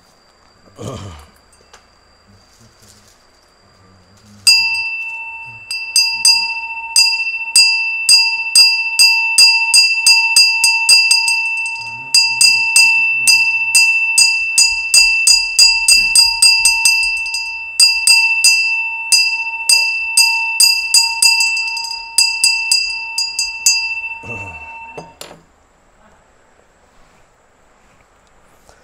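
A ritual hand bell rung steadily, about two strikes a second, each strike ringing on in a sustained high tone. The ringing starts a few seconds in and stops abruptly about 25 seconds in, just before the shaman's invocation.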